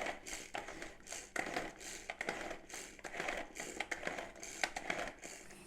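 Boiled chicken being crushed into shreds, with a run of irregular tapping and crunching strokes, about two or three a second.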